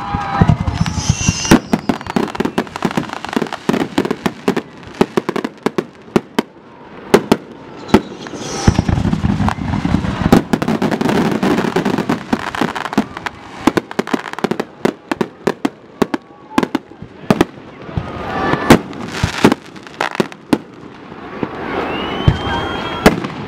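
Aerial fireworks display: a rapid, irregular barrage of sharp shell bursts and bangs, with a stretch of dense crackling in the middle.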